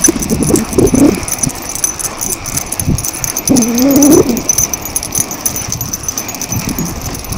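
Small dog whining while walking on its leash, a short cry that bends up and down about a second in and a longer one around four seconds in.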